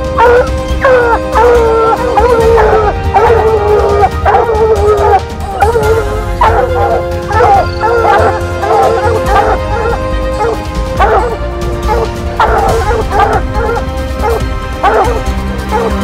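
A pack of hunting hounds baying and barking up a tree, the sign that they have a mountain lion treed, over background music.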